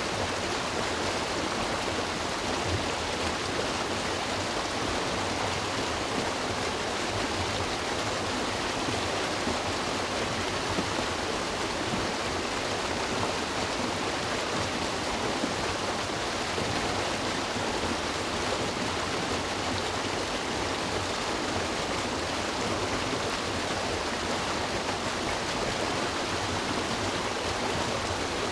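River water rushing and splashing over rocks, a steady, even roar with no change.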